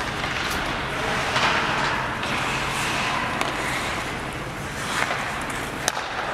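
Ice hockey play: skates scraping and carving on the ice, with a few sharp clacks of sticks and puck, the loudest near the end.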